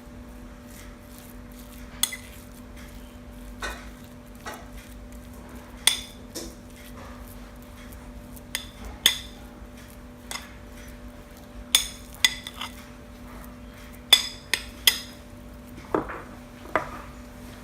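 Kitchen utensils clinking against dishes: a dozen or so sharp, irregular clinks over a steady low hum.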